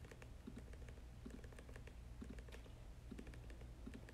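Soft typing on a MacBook laptop keyboard: an irregular run of faint key clicks over a low steady hum.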